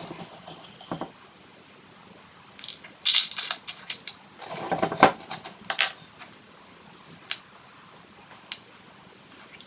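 Dry hamster food mix of seeds and grains rattling and clicking as it is scooped from a glass jar and tipped from a plastic tablespoon into a small plastic bowl. It comes in short bursts about three seconds and five seconds in, with a few single clicks after.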